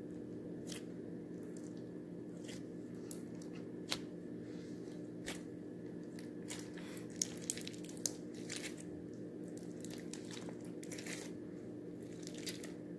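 Pink floam slime, slime packed with foam beads, pressed and kneaded by hand: scattered crunchy crackles and small pops as the beads are squeezed, sharpest about four seconds in and again around seven to eight seconds in. A steady low hum runs underneath.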